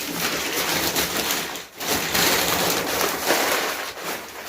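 Packing paper and cardboard rustling and rubbing as the boxed unit is handled, in two long stretches with a short break about a second and a half in.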